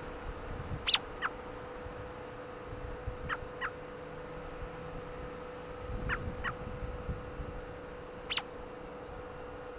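American robin giving short, sharp chirps, some single and some in quick pairs, about seven in all, with wind buffeting the microphone.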